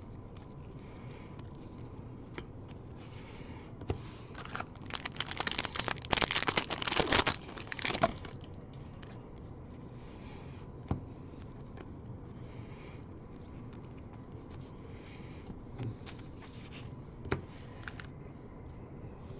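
A foil trading-card pack wrapper being torn open and crinkled, in a dense crackly burst from about four and a half to eight seconds in. Otherwise quiet handling of cards, with a few light clicks and taps.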